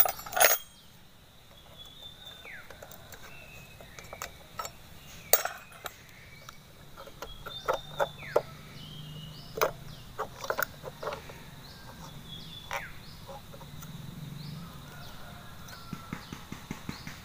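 Scattered small metal clicks and knocks as a large chainsaw's carburetor is worked loose by hand and eased off its intake manifold. The strongest knocks come right at the start and about five seconds in.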